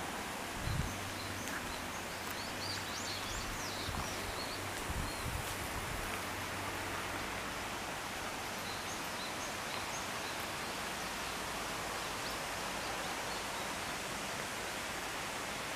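Steady outdoor hiss of background noise, with a few small birds chirping faintly about two to three seconds in and again near ten seconds. There are brief low thumps about a second in and around five seconds.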